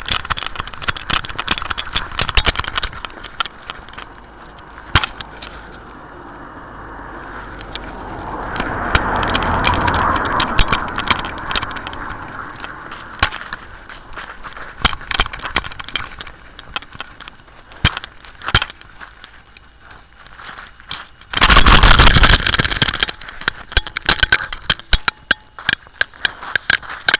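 Rubbing and knocking noise from a camera worn by a moving dog: a dense run of sharp clicks, crackles and rattles. A passing car swells and fades in the middle, and about three-quarters of the way through there is a loud rush of noise lasting about a second and a half.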